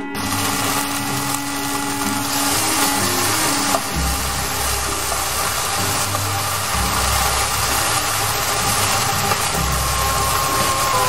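Kimchi sizzling in hot oil in a nonstick frying pan, a steady hiss, with a wooden spatula stirring and pushing the pieces around in the second half.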